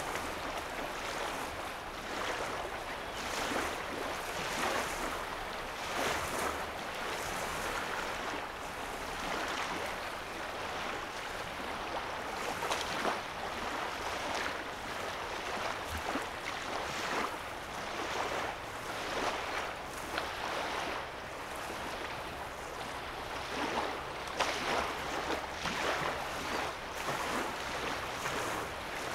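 Small lake waves lapping and splashing on the shoreline, a steady wash broken by soft irregular splashes every second or two. A faint low hum sits underneath.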